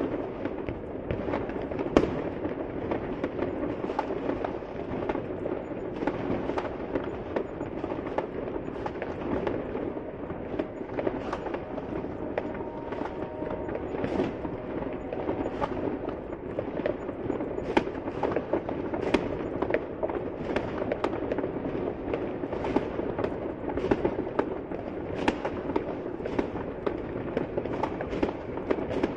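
New Year fireworks going off continuously: a constant crackle and rumble of many distant explosions, with sharper individual bangs and pops scattered through it, the loudest about two seconds in.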